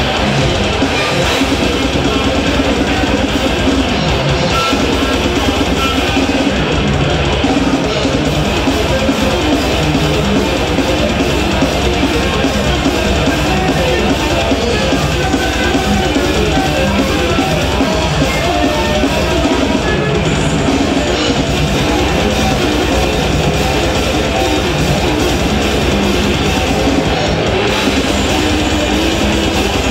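Death metal band playing loud and without a break: distorted electric guitars, bass guitar and drum kit.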